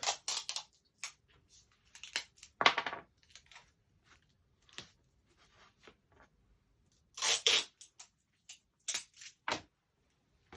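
Cardboard and workshop items handled on a bench: intermittent scraping and rustling with a few sharp knocks, the loudest knock about a quarter of the way in and a longer scrape about two-thirds through.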